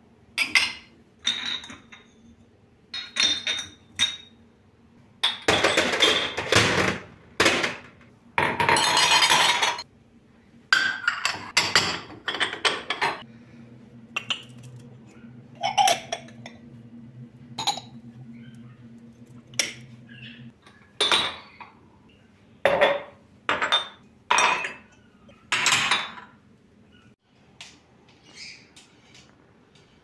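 Drinking glasses and ceramic mugs clinking and knocking together as they are lifted off and set down on a cabinet shelf, in many separate sharp clinks. Twice, a longer clattering rattle lasts a second or two.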